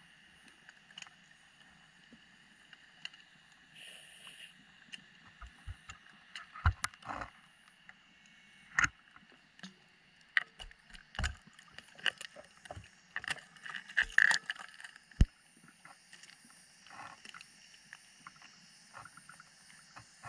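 Underwater sound of a diver's gear and camera: a steady hiss with scattered, irregular clicks and knocks, bunched up and loudest through the middle.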